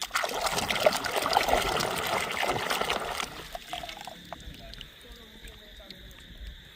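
Water pouring and splashing over plastic toys for about three seconds, then stopping abruptly.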